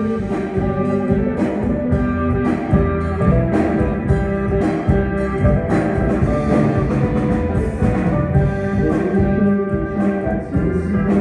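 Live band playing, with guitar and drum kit, a steady beat of drum hits under sustained guitar chords.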